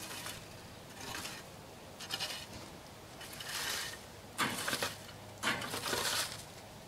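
Rake scraping over dirt and dry leaves in repeated pulls, about six strokes roughly a second apart, the loudest ones a little past halfway.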